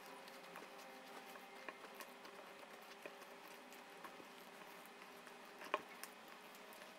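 Faint clicks of a spatula against a mixing bowl and soft wet squelching as apple slices are folded into thick cake batter, with one sharper click near the end.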